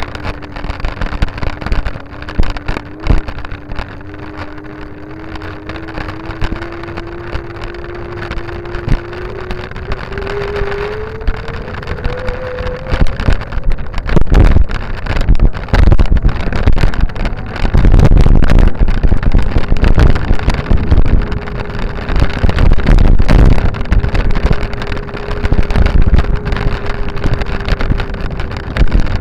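A steady motor-like whine that climbs in pitch over the first dozen seconds, as if speeding up. Wind then buffets the microphone in loud gusts from about halfway, over a fainter steady whine later on.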